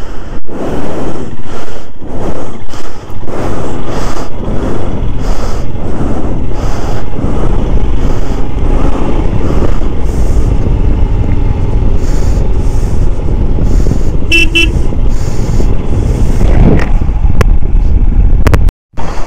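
A motorcycle on the move, its engine and road noise loud and steady. A short horn toot sounds about fourteen seconds in. The sound drops out for a moment near the end.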